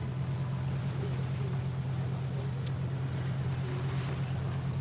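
Tour boat's engine running with a steady low hum under a rushing hiss of wake water and wind.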